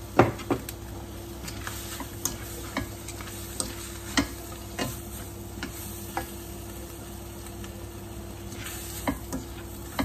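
A spatula clacking and scraping against a wok as stir-fried wombok and choy sum are tossed, with irregular knocks and a low sizzle underneath. The sharpest knock comes right at the start.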